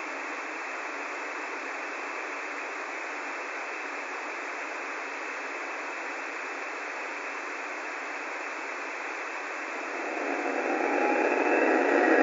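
Steady static hiss with no bass. About ten seconds in, it swells louder and several steady tones come in within it.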